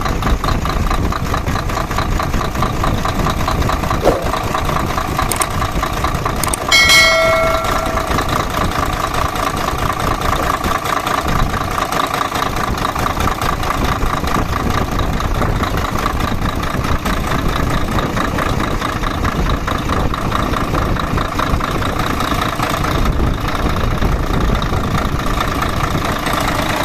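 Mercedes-Benz Actros 2040 truck's diesel engine idling steadily on its newly replaced injectors, fitted to cure low power and white smoke. A brief ringing tone sounds once about seven seconds in.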